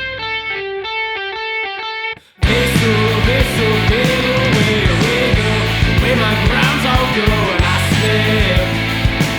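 Alternative rock song: a short passage of sparse clean notes without bass or drums, a brief cut-out, then the full band comes in about two and a half seconds in with drums and distorted electric guitars.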